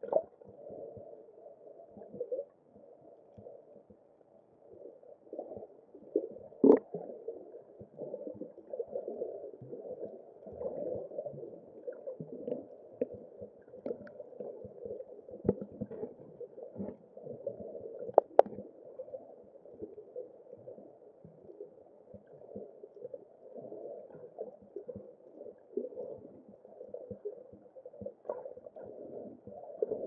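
Muffled underwater noise heard through a waterproof camera housing: a continuous low churning of water with scattered faint clicks. Two sharper knocks stand out, about seven seconds in and again past the middle.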